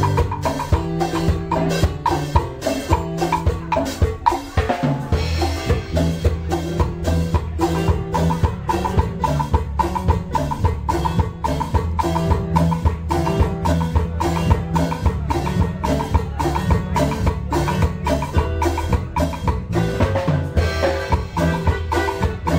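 Instrumental band music: a drum kit keeps a steady dance beat under a bass line and a melody. The beat drops out briefly about five seconds in.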